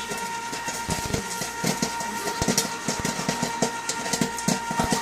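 Kernels popping in the kettle of a tabletop popcorn machine: irregular sharp pops, several a second, over the machine's steady hum.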